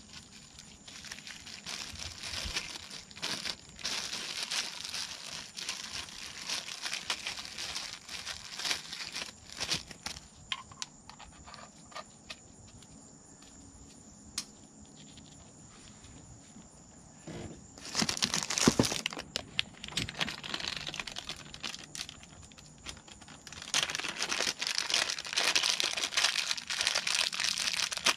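Plastic crinkling and rustling with tearing sounds, as gloved hands work thread-seal tape and plastic packaging onto black iron pipe fittings. It comes in uneven stretches, quieter in the middle and loudest for a second or two past the halfway point and again for several seconds near the end.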